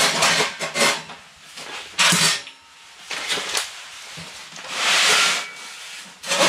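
Sheet-metal clanks and scrapes as the fold-out steel legs of a Winnerwell Nomad Medium wood stove are fitted: a quick run of clatters, a few separate scrapes, and a longer scrape near the end.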